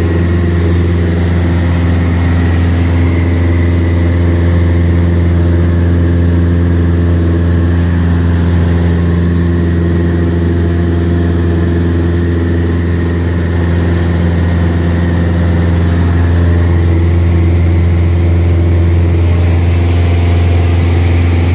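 Cessna light aircraft's piston engine and propeller running with a loud, steady drone.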